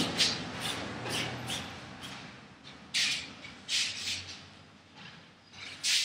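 Short scuffs and squeaks of a painter working at a large canvas and stepping about on a tiled floor. The loudest comes right at the start, several follow in quick succession, then a few more come a second or so apart.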